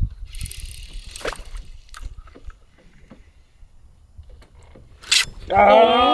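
Low steady rumble of wind and boat noise on the open water, with a short hiss about a second in. Near the end a man gives a loud, drawn-out excited shout.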